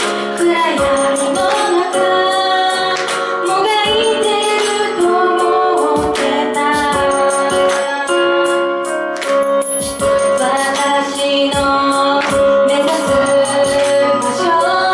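A woman singing an original pop song over instrumental accompaniment with a steady beat.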